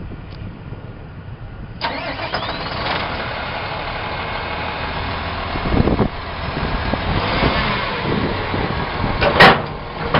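2003 International 7400 plow truck's diesel engine starting about two seconds in, with a brief rising whine, then running steadily. A thump comes a little past halfway, and a short, loud burst of noise comes near the end.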